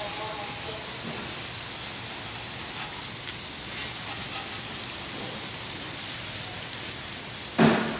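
Fine water spray from a hose nozzle hissing steadily as it sweeps across the painted metal side of a fire engine. A brief thump near the end.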